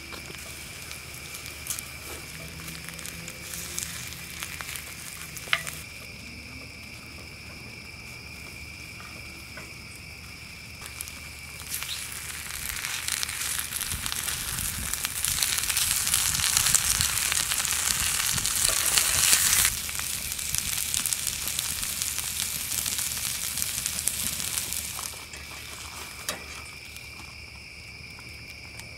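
Clam fried rice and beef patties sizzling in a cast-iron skillet over a campfire as a spatula stirs them. The sizzle swells about twelve seconds in, is loudest a little past the middle, and drops back near the end.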